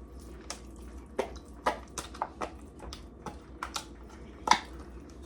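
A spoon scooping and scraping chicken salad out of containers into a bowl: about ten irregular wet clicks and taps, the loudest about four and a half seconds in.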